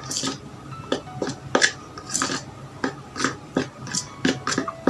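White glue and toothpaste being stirred together in a small bowl: short, irregular sticky clicks and scrapes, about two or three a second.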